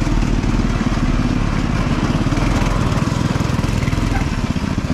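Small go-kart engine running steadily with a rapid low pulse while the kart drives along a dirt track.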